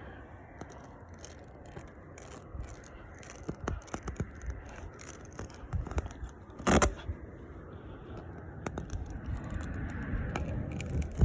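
Metal tire-repair tools scraping and clicking against a punctured tire, most likely the plug kit's rasp reamer being worked in the nail hole to open it up before plugging. The clicks are irregular, with one louder knock about seven seconds in.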